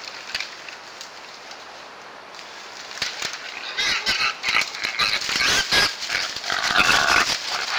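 Feral hogs squealing, mixed with crackling of dry leaves and brush as they move. It starts about three seconds in and grows louder, with irregular bursts of squeals toward the end.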